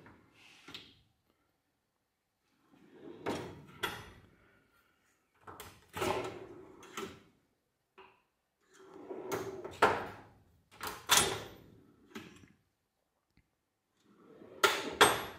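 Metal drawers of a stainless-steel tool cabinet sliding open and shut on their runners, about four times with pauses between, each movement a short rolling slide ending in a clack.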